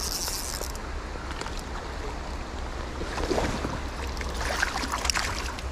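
Creek water running, with a steady low wind rumble on the microphone. There is a brief hiss in the first second, and a few short clicks and rustles about three seconds in and near the end.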